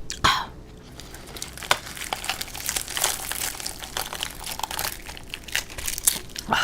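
Close-miked crunching and crackling as crispy fried-chicken skin is bitten into and chewed, a run of sharp little cracks.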